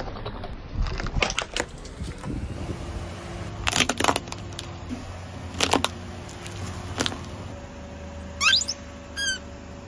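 Car tyre rolling over small plastic toys and crushing them, giving a series of sharp cracks and crunches. Near the end there is high-pitched squeaking as a rubber toy figure is pressed flat under the tyre.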